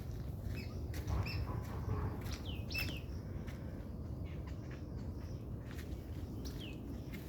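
Birds chirping: a handful of short, quickly falling calls, a few close together near 2.5 seconds in and another near the end, over a steady low rumble.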